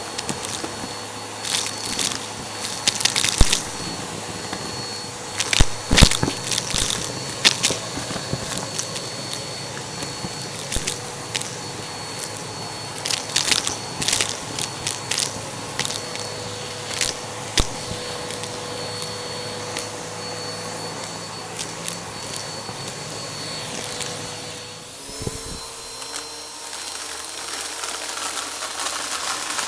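Vacuum cleaner running with a steady whine while it sucks up a crunchy mess-test mix, giving many sharp crackling crunches. At about 25 seconds the crunching thins out and the motor's pitch steps up slightly, as the suction frees up.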